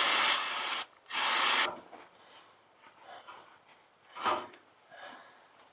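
Two hissing bursts of pressurized spray, the first about a second long and the second, just after, about half a second long, followed by a few faint small knocks.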